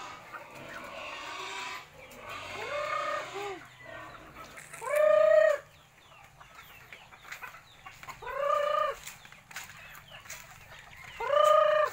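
Free-range chickens calling: four loud, drawn-out calls, each ending with a drop in pitch, come about three seconds apart over soft clucking, the loudest about five seconds in.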